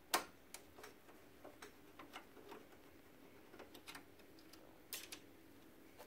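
Light, irregular clicks and taps of a magnetic-tipped Phillips screwdriver and small screws against a laser printer's metal and plastic frame. The sharpest click comes just after the start, with a close pair about five seconds in.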